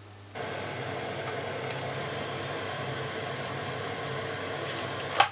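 Steady static hiss from a Toyota A56409 car stereo's radio tuned between stations. It starts suddenly and cuts off with a sharp click near the end.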